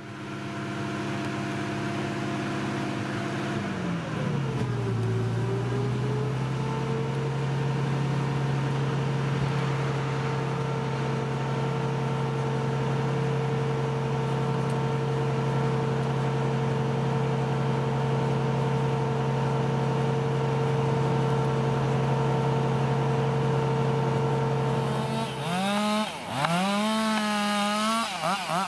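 An engine running steadily; its pitch drops about four seconds in and then holds, and near the end it revs rapidly up and down several times.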